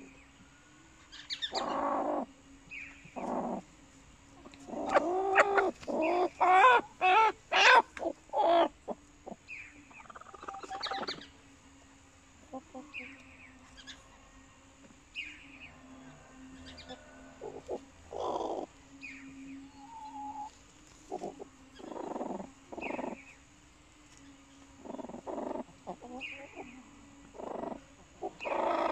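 Hens calling in a nest crate: a fast run of loud clucks about five to nine seconds in, then scattered single clucks and drawn-out calls.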